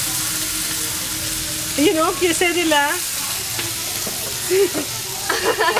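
Food sizzling as it fries in oil in a pan, a steady hiss, with short bursts of voices over it.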